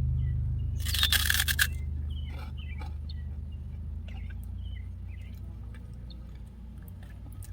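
A small crunchy bite into a spicy puff ring about a second in, followed by faint crunching and chewing. A low steady hum underneath fades out midway.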